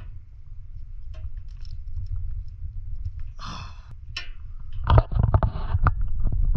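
Scraping and knocking of a hand tool working a steel exhaust spring off its hook, with a louder cluster of knocks and scraping about five seconds in. Under it runs a steady low rumble of handling noise on the microphone.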